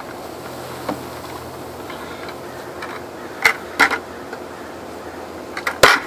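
Red plastic bucket knocking against a plywood hive ramp as a clustered honey bee swarm is tipped and shaken out of it, a few sharp knocks with the loudest double knock near the end, over a steady background hum.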